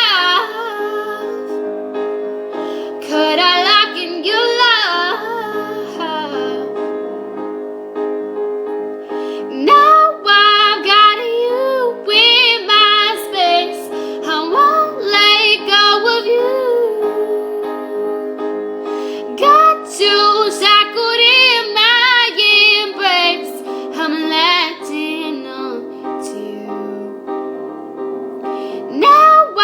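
A woman singing with vibrato, in phrases broken by short pauses, over sustained backing chords.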